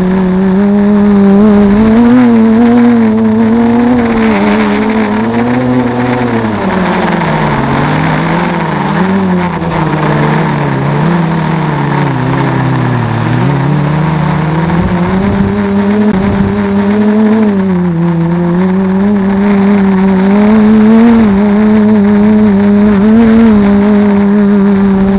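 Armattan Rev2 quadcopter's brushless motors and propellers whining, heard through the onboard camera. The pitch wavers up and down with the throttle and dips low about halfway through before climbing back, over steady wind noise on the microphone.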